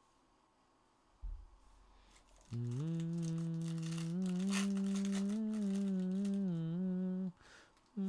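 A man humming a low tune with closed lips, starting a couple of seconds in and breaking off near the end, the pitch stepping gently up and down. Under it, the crinkle and tear of a foil trading-card pack being opened.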